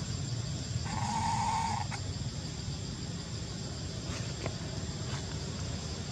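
A single macaque call, one flat bleat-like cry lasting about a second, near the start. It sounds over a steady low rumble.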